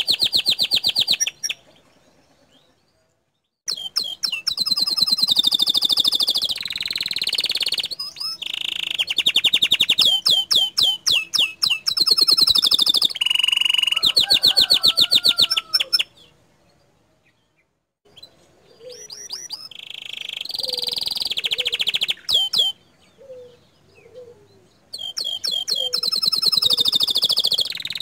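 Domestic canary singing hard: long phrases of rapid trills and rolls. The song breaks off twice, about two seconds in and again past the middle, then resumes.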